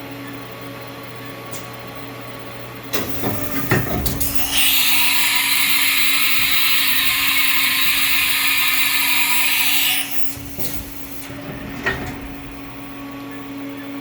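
1994 Haas VF-3 vertical machining center humming steadily. About three seconds in it clatters with mechanical knocks, then gives a loud, steady hiss for about five seconds that cuts off suddenly, followed by a few more clunks.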